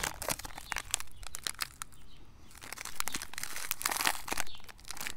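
Foil-and-plastic wrapper of a puffed-rice snack bar crinkling and tearing as it is peeled open by hand, in irregular crackles with a short lull about two seconds in.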